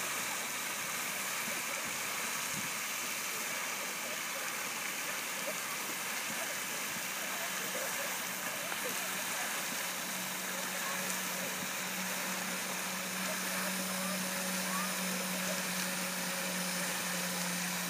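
Steady outdoor hiss with faint, indistinct distant voices. A low steady hum joins about ten seconds in.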